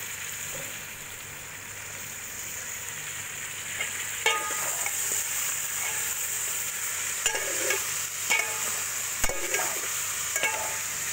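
Chicken pieces sizzling in oil and onions in an aluminium pot while a metal ladle stirs them. From about four seconds in, the ladle scrapes and clinks against the pot several times.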